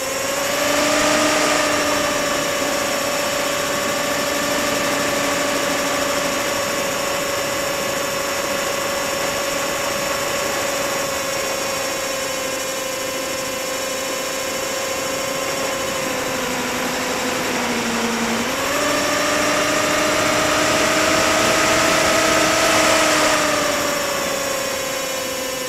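Electric motor and propeller of a HobbyZone Firebird Stratos RC plane whining steadily in flight, picked up by the camera riding on the plane, with wind rushing over it. The pitch sags a little about two-thirds of the way through, jumps up as the motor speeds up, and drops again near the end.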